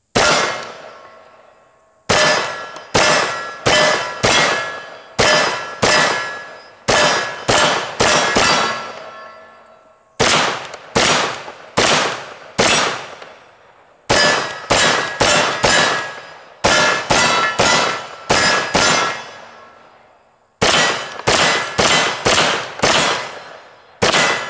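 Auto Ordnance M1 carbine firing steel-cased .30 Carbine rounds in semi-automatic strings of about two shots a second, with short pauses between strings. Each shot is followed by steel targets ringing as the hits land.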